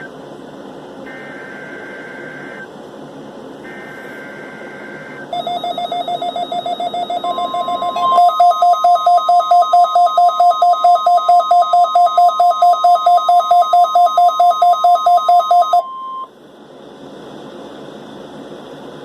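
NOAA Weather Radio emergency alert test: two short bursts of warbling data tones, then the steady 1050 Hz weather warning alarm tone for about nine seconds. Under the alarm tone, a weather alert receiver's alarm beeps rapidly. It starts about five seconds in, gets louder about eight seconds in, and stops with the tone about sixteen seconds in, leaving radio hiss.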